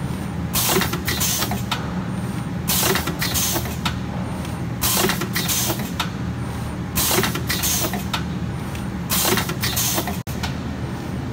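Automatic jelly-stick form-fill-seal packing machine running: a steady low motor hum, with a sharp hiss of compressed air from its pneumatic cylinders about every two seconds as each sealing cycle works.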